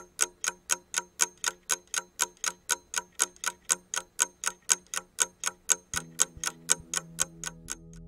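Rapid, even ticking at about four ticks a second, over a low steady tone. Near the end a soft sustained music chord fades in and the ticks fade away.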